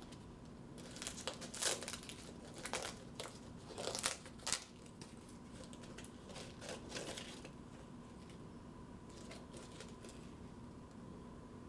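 Dry, papery husk of a tomatillo being peeled and picked off by hand: irregular crinkling and rustling in bursts, busiest in the first half, with a few faint crackles near the end.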